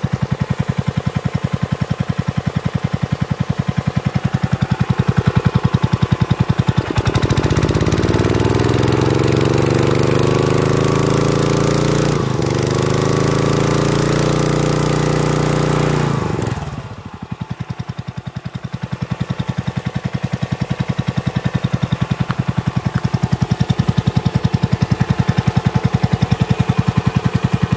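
Kubota GS280 single-cylinder four-stroke gasoline engine driving a high-pressure water pump, running steadily along with the hiss of the pump's water jet. About seven seconds in the engine revs up, its pitch rising and holding higher for about nine seconds, then it drops back to a lower, slower running speed.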